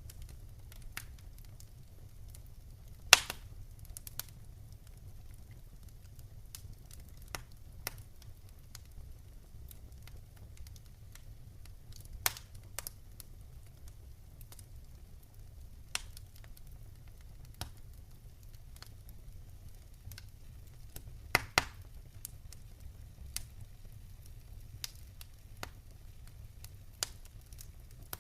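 Wood fire burning in a fireplace: scattered sharp crackles and pops over a low, steady rumble. Two pops stand out as louder, about three seconds in and about three-quarters of the way through.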